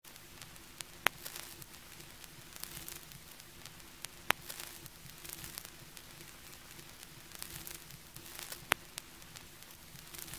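Vinyl record surface noise from a turntable stylus in the groove: a steady crackle and hiss with three sharp, loud pops spread across it.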